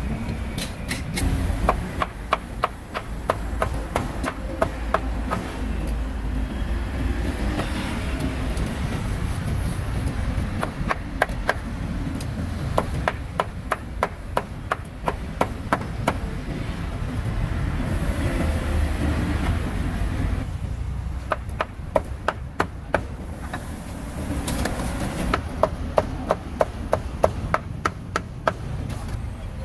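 Cleaver chopping grilled meat on a cutting board in runs of quick, sharp knocks, about four strokes a second, with short pauses between runs.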